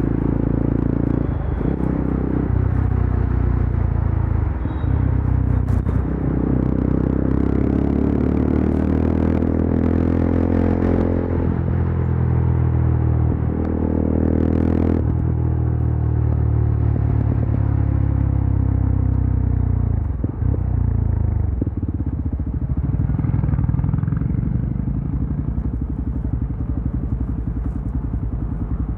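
Yezdi Adventure's single-cylinder engine pulling hard on the highway, its pitch climbing through the revs and dropping at two gear shifts, with a few sharp exhaust crackles around the shifts. Past the middle the revs fall away and the engine settles to a lower, steadier run.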